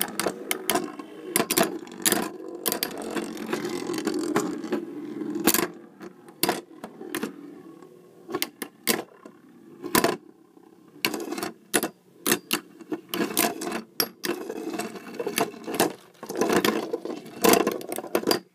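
Two Beyblade spinning tops whirring and scraping around a plastic stadium, with frequent sharp clacks as they collide and strike the walls.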